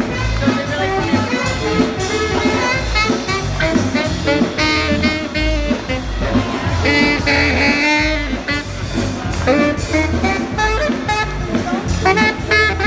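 Live swing jazz: a saxophone plays quick melodic lines over the band's steady low beat.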